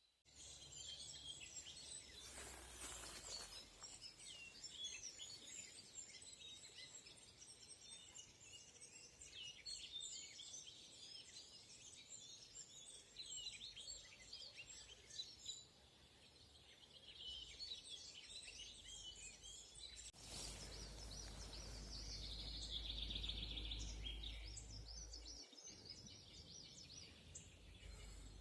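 Faint chorus of many small songbirds chirping and singing at once. A low rumble, like wind on the microphone, rises briefly a couple of seconds in and again for several seconds from about 20 seconds in.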